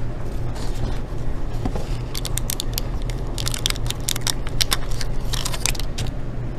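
Quick small clicks and taps of fingers working a laptop ribbon-cable connector latch and the plastic around it, a dense run of them from about two seconds in, over a steady low hum.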